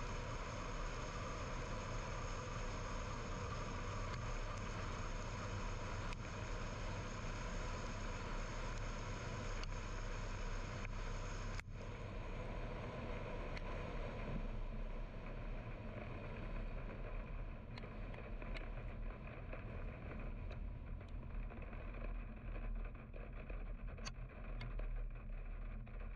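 Steady road and tyre noise of a car driving, heard from inside the cabin. About twelve seconds in there is a sharp click, and the hiss turns duller after it. Faint ticks come in near the end.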